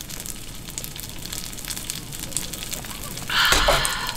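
Food sizzling and crackling softly in a frying pan on a portable gas stove. Near the end, a loud breathy 'kha~' exhale of satisfaction after a gulp of beer.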